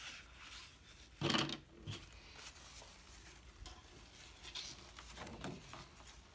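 Paper and a painting board being shifted on a tabletop: a knock with rustling about a second in, then lighter rustles and small taps.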